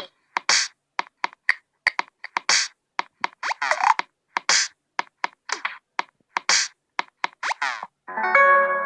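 Google Pixel ringtone made of rhythmic percussive clicks, pops and short swishes, some sweeping down in pitch, about three a second. Near the end the next ringtone starts with plucked, guitar-like notes.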